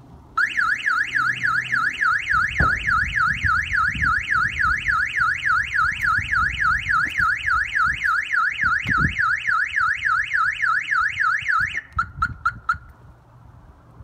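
Car alarm siren on a Fiat 595 Abarth, a Clifford 330 X Series system, sounding a loud, fast rising-and-falling warble. It stops near the end, followed by a few short chirps.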